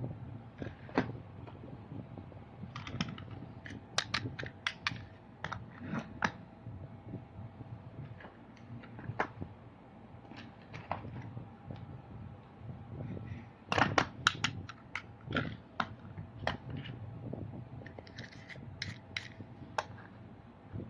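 Small plastic toy trucks being handled: irregular light clicks and taps of hard plastic, coming in quick clusters now and then, over a low hum.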